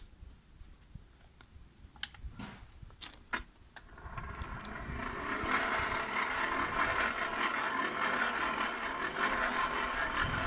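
A few light knocks of metal being handled, then about four seconds in a small electric blower starts and runs steadily with a low wavering hum, blasting air into the coal forge's fire.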